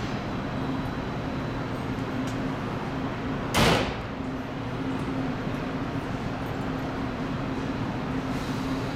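Coupled JR 211 series and 313 series electric train standing at the platform with a steady low hum. About three and a half seconds in, its sliding doors close with one short, loud burst, the sign that the train is about to depart.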